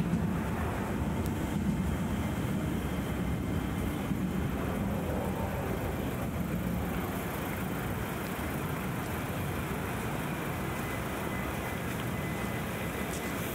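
Steady low rumble of vehicle traffic in a city street at night, a little louder in the first few seconds and then easing off.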